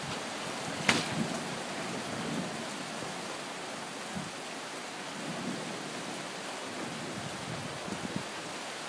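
Steady hiss of rain and wind from a thunderstorm, with one sharp tick about a second in.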